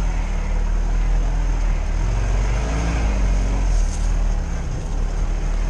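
Lada Niva engine running under load while the car drives off-road, heard from on board. The revs rise and fall briefly about three seconds in.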